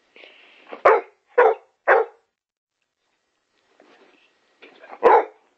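Dog barking at an inhaler: three quick barks about a second in, then one more near the end.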